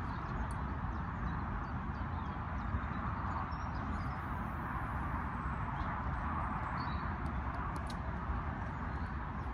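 Steady outdoor ambience: wind rumbling on the microphone over an even hiss.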